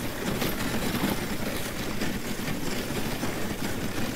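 Dog sled runners scraping and rumbling steadily over a hard, crusty snow trail on a downhill run.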